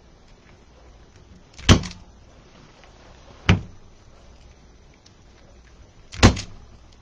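Three sharp clacks about two seconds apart, the first and last slightly longer and the last the loudest.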